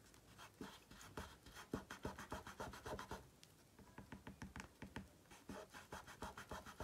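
Quick, faint scratching strokes of a makeup pencil on paper, shading lightly around the edges of an art-journal page, with a short pause about three seconds in.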